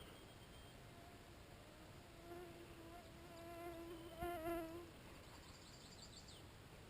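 A flying insect buzzing close by: a steady hum that comes in a couple of seconds in, wavers and swells, then fades out about two seconds later.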